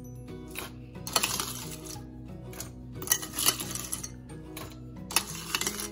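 Crushed ice spooned into a blender beaker, clattering and clinking in three short bursts about two seconds apart, over background music.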